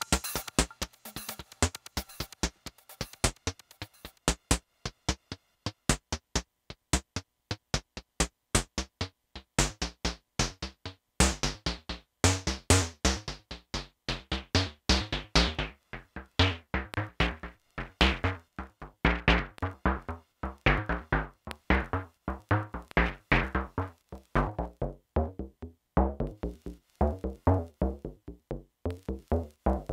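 Electronic music played live on a modular synthesizer: a fast drum-machine percussion pattern of short clicks and hits with synth notes. It starts sparse and fills out, and a deep kick drum joins about eleven seconds in.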